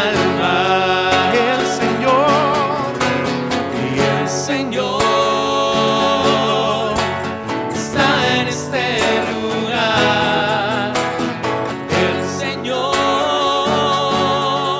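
Live worship music: strummed acoustic guitars with singers on microphones holding long notes with vibrato.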